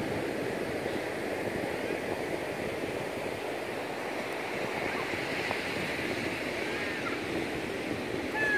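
Steady hiss of ocean surf washing onto the beach.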